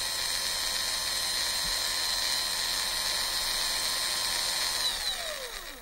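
Video transition sound effect: a steady high electronic whine over a hiss that, near the end, slides down in pitch and fades out like a machine powering down.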